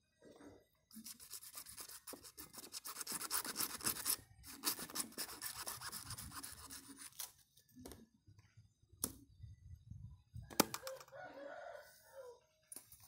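Dry scratchy scraping and rubbing for several seconds, then two sharp clicks about a second and a half apart; a rooster crows in the background near the end.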